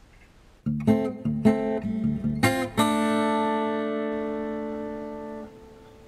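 Background music on acoustic guitar: a quick run of strummed chords starting under a second in, ending on a held chord that rings for nearly three seconds and then cuts off.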